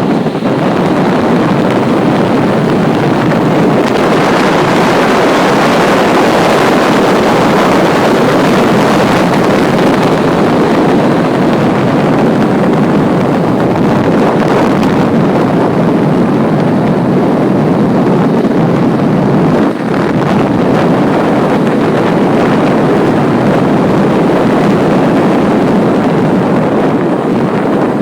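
Loud, steady wind rush over the microphone of a bicycle descending at speed, up to about 38 mph, with a brief lull about two-thirds of the way through.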